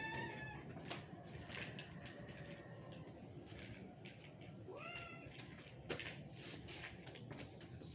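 Domestic cats meowing: a call ending just after the start and a second, short rising meow about five seconds in, over faint clicking and smacking of cats eating from plastic bowls.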